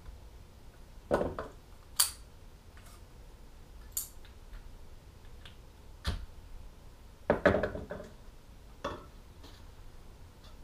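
Scattered clinks and knocks of a kitchen knife, a small plastic cup and tools being picked up and set down on a wooden workbench, about six in all, the loudest about two seconds in and again around seven seconds in.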